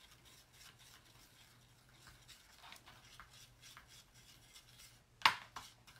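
Plastic palette knife stirring and scraping chalk paste in a plastic paint palette: soft, scattered scraping strokes, with one sharp tap a little after five seconds in.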